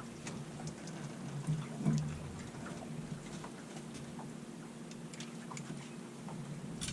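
Faint steady hum of a boat motor while trolling, with light scattered clicks and ticks.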